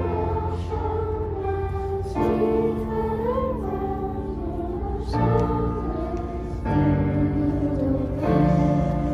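Choral music with keyboard accompaniment: held chords that change every second or two.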